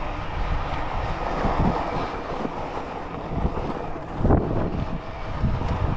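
Wind on the microphone and the fat tyres of a Bikonit MD 750 e-bike rolling over a dirt trail while it is ridden, with a thump from a bump about four seconds in.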